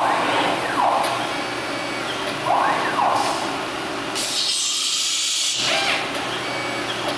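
Multicam MG Series CNC router's axis drive motors whining, rising then falling in pitch twice as the head makes rapid moves. A hiss of compressed air lasting about a second and a half comes in the middle, over a steady machine hum.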